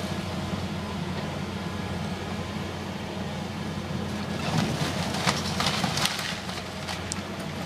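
Diesel engine of a John Deere tracked excavator running steadily. About halfway through comes a couple of seconds of cracking and clattering as the bucket tears boards and debris from a house.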